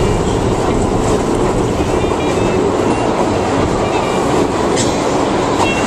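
Loud, steady rumble of a New York City subway train running, heard from inside the car, with a few brief high squeals from the train.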